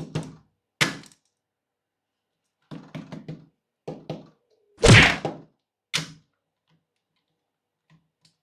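A series of separate knocks and clatters of plastic toy pieces being handled and set down, with short silences between them. The loudest is a heavy thunk about five seconds in.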